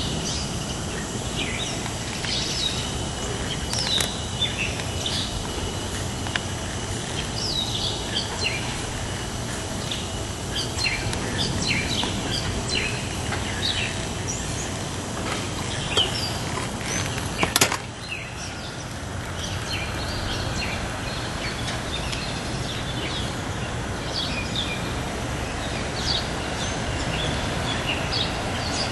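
Small birds chirping in short, scattered calls over a steady background hiss, with a single sharp knock about halfway through.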